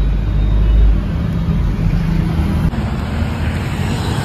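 Steady low rumble of motor vehicles and road traffic.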